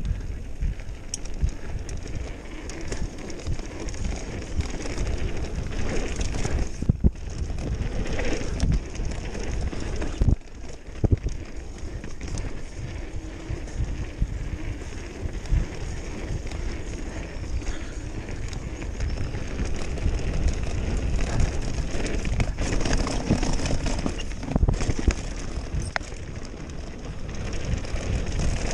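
Mountain bike riding fast down a rocky dirt trail: tyres rolling and crunching over dirt and stones, with the bike clattering and knocking over bumps. Wind rumbles on the on-board microphone throughout.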